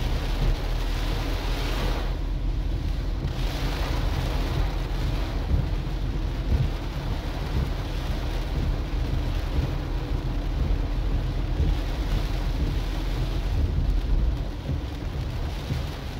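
Heavy rain pattering on a Suzuki Swift's roof and windshield, heard inside the cabin over the steady low rumble of the car driving on the wet road.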